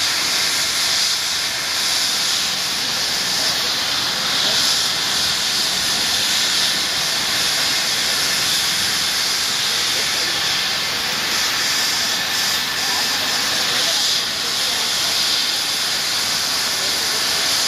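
Rescue helicopter running on the ground after landing: a steady hissing turbine noise that holds at one level throughout.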